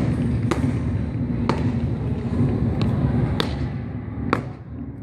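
Crisp stamps of drill boots on paving: about five sharp footfalls roughly a second apart, over a steady low background rumble.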